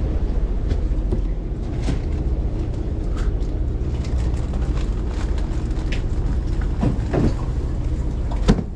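Steady low rumble of a charter fishing boat's engine running, with scattered knocks and rubbing from handling close by.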